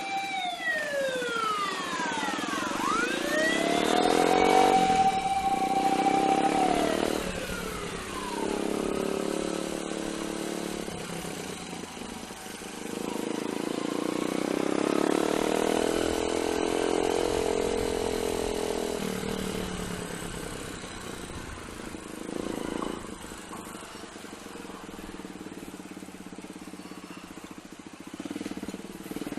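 Motorcycle engine running under way. Its pitch drops and climbs back up as it slows and speeds up, and it swells and fades again midway through.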